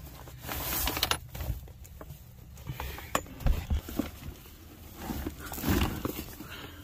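Handling noise: rustling with scattered light clicks and knocks, coming in small clusters.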